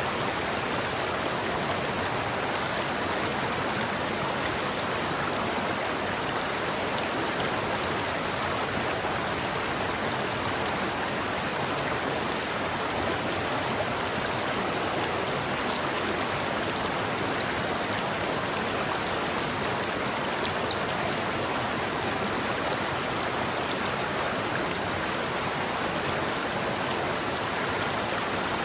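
River water flowing steadily over rocks, an even rushing with no breaks.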